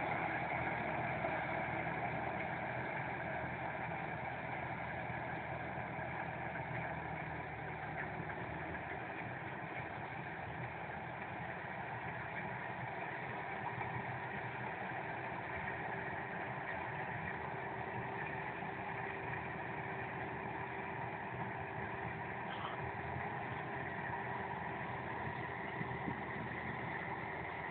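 Engine of a rice harvesting machine running steadily.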